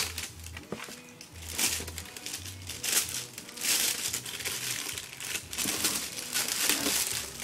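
Packaging crinkling and rustling in irregular bursts as it is handled and pulled open during an unboxing.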